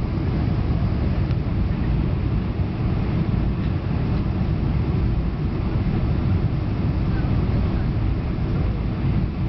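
Steady rumble of a Boeing 747's engines and airflow heard inside the passenger cabin during landing.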